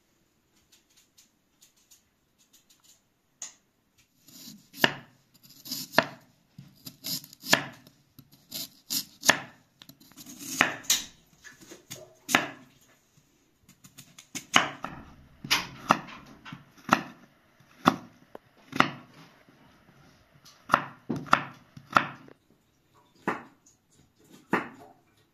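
Knife cutting raw potato on a wooden board: irregular sharp knocks, about one every half second to a second, starting about four seconds in after a few faint clicks.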